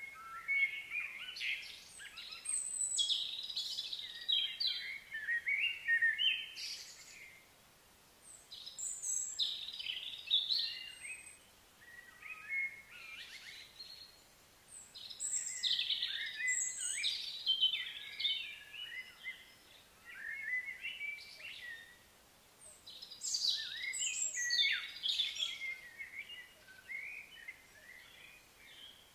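A songbird singing in bouts of quick, varied chirps and trills, each bout lasting several seconds with short pauses between.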